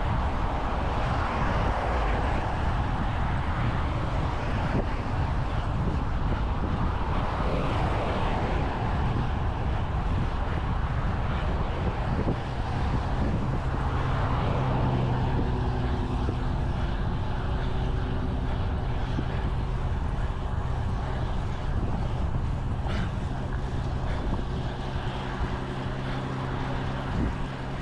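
Wind rushing over the microphone and passing traffic noise during a road bike ride. About halfway through, a steady engine hum from a nearby motor vehicle joins in and holds until near the end.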